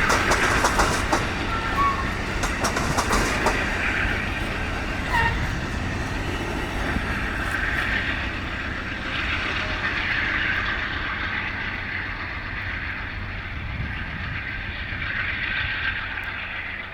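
Amtrak Zephyr passenger train rolling past, its wheels clicking over the rail joints, most thickly in the first few seconds. The sound slowly fades as the train moves away.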